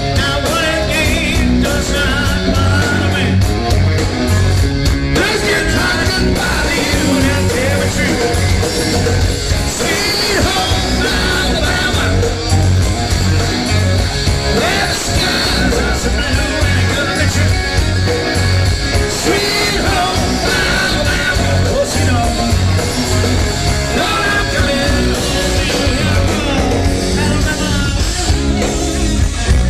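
Live rock band playing loud: a male lead singer singing over electric guitar, bass and drums.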